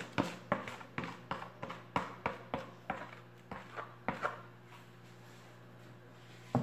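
A spoon repeatedly scraping and knocking inside a plastic jug, about three or four quick taps a second, as the last of the thick soap batter is scraped out into the moulds; the tapping stops about four seconds in, leaving a low steady hum.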